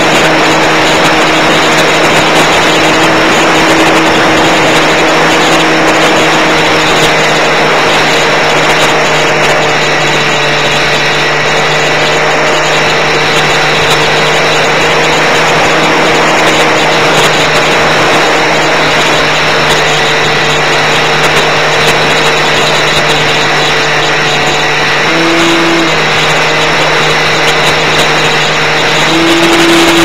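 Electric motor and propeller of a Multiplex EasyStar model plane running steadily, heard from the onboard camera over loud rushing air. The motor tone shifts briefly about 25 seconds in and steps up again just before the end.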